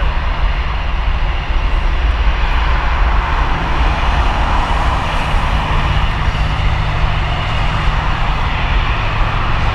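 Jet engines of an Airbus A330neo, Rolls-Royce Trent 7000 turbofans, running at high power. A loud steady noise with a deep rumble that swells in the middle.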